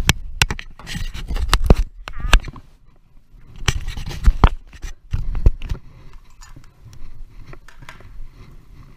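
Handling noise from a camera being carried about: rustling and scraping with several sharp knocks, and a plastic water bottle handled close to the microphone.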